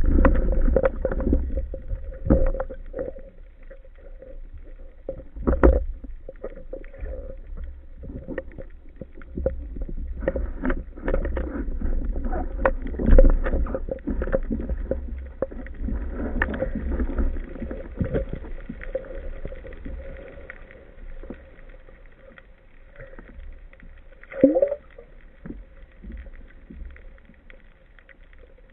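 Underwater sound picked up by a camera on a speargun: water moving against the housing and scattered knocks and clicks as the gun and line are handled, over a steady low hum. A few knocks stand out, and there is a short rising squeak near the end.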